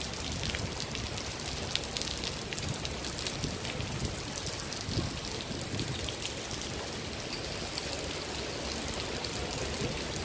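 Heavy rain falling on wet stone paving: a steady hiss of rain with many separate small drop splashes.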